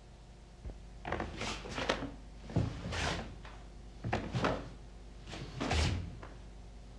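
Karate gi cloth snapping and swishing in a quick series of strikes and blocks, with bare feet thudding on the floor a few times, over a faint steady hum.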